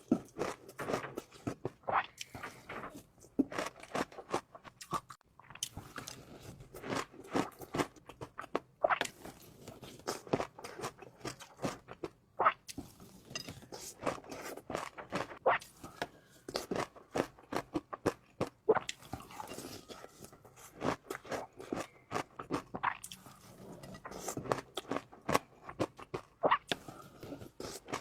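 A person eating into a close microphone, chewing and biting food, with a steady, irregular run of short sharp mouth clicks.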